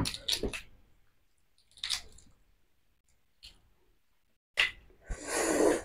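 Close-up eating sounds: chewing, and the clicks and crackle of shell being peeled off boiled half-incubated chicken eggs. A few short clicks come in the first half-second and a couple more later, with a brief rushing noise near the end.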